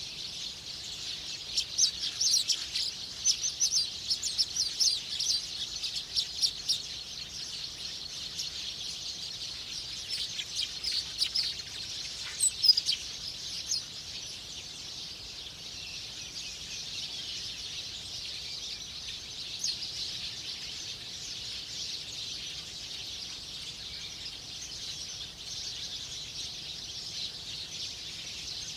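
Small birds chirping in quick short notes, thickest in the first half and again around twelve seconds in, over a steady high-pitched hiss of background noise.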